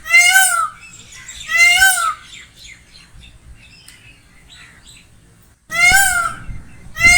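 Peacock (Indian peafowl) calling: three loud, short, rising-and-falling wails, one at the start, one about a second and a half in and one near the end, with fainter chirps in the gap between them.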